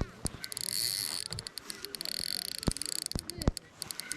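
Insects buzzing with a steady high hiss that starts about half a second in and stops near the end, over scattered sharp clicks and a few soft knocks.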